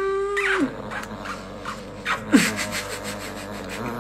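Small white chihuahua snarling and growling, a rough rasping growl lasting about three seconds, after a short held tone at the start.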